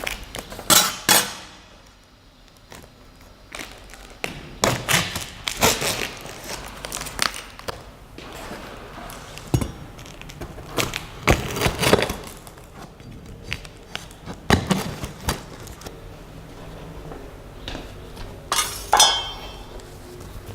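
Unboxing sounds: a box and its packing being handled, with irregular knocks, clinks and rustling as parts are lifted out and set down. The sharpest knocks come about a second in, near the middle and near the end.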